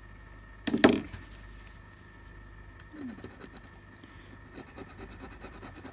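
Quiet bench work: faint scratching and light clicks of a tool clearing solder from a small component, over a steady electrical hum. Two short low pitched calls break in, a louder one about a second in and a fainter falling one about three seconds in.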